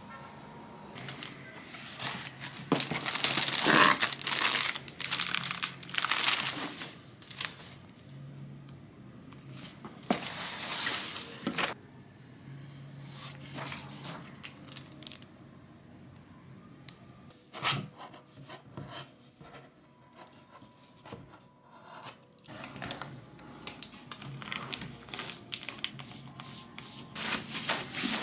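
Packing tape ripped off a cardboard box, along with rustling and crinkling of packaging, in several separate bursts; the loudest tearing comes in the first few seconds.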